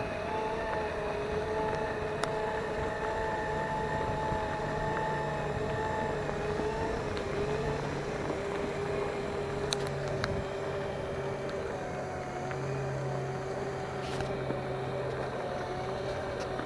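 A vehicle's motor running steadily, with a whine of a few steady tones that dips slightly in pitch about halfway through, over a low hum and a rushing noise.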